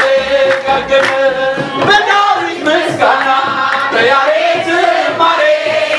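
Congregation singing an Ethiopian Orthodox mezmur (hymn) together, with a kebero hand drum beating and hands clapping along in a steady rhythm.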